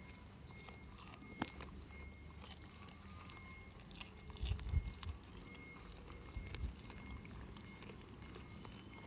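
Goats chewing and biting broad bean (fava) pods, with scattered crunching clicks and a few low thumps a little after halfway.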